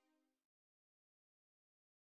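Near silence: digital silence, with only the inaudible last tail of an outro jingle dying away in the first half second.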